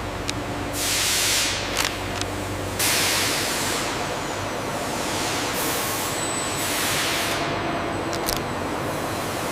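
Factory machinery noise: several bursts of hissing air, each starting suddenly and then fading, with a few sharp clicks over a low steady hum.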